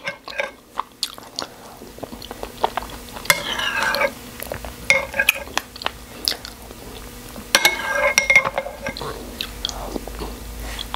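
Close-up eating sounds: a person chewing and taking spoonfuls of pap, a smooth corn porridge, with sharp clicks of a metal spoon against the bowl.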